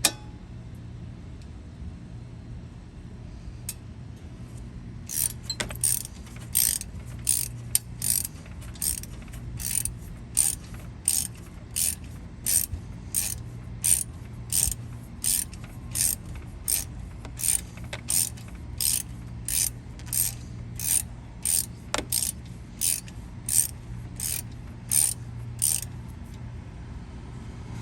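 A socket ratchet on an extension running down a brake caliper guide pin bolt, its pawl clicking in short bursts about one and a half times a second on each back-swing. The clicking starts about five seconds in and stops shortly before the end.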